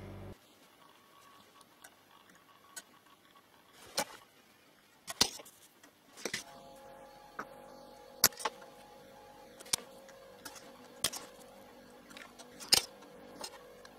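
Irregular sharp clicks and snaps of hand tools desoldering a footswitch from a guitar effects pedal's circuit board, about a dozen, the loudest about five, eight and thirteen seconds in. A faint steady hum sets in about six seconds in.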